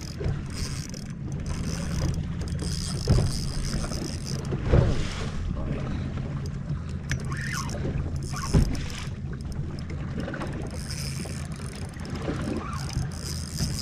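Bass boat on open water: a steady low hum with a few heavy knocks against the hull, about three seconds apart.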